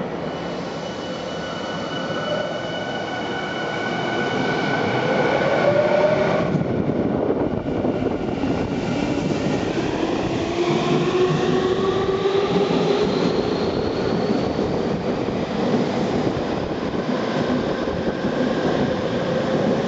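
Yokohama Minatomirai Railway Y500 series electric train pulling out of the station: its traction motors whine in several tones that rise in pitch as it accelerates, over the steady rumble of the cars running past.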